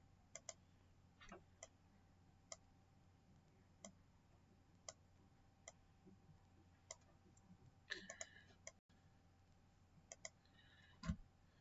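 Faint computer mouse clicks and key taps, roughly one a second at uneven spacing, with a quick cluster about eight seconds in and a soft thump near the end.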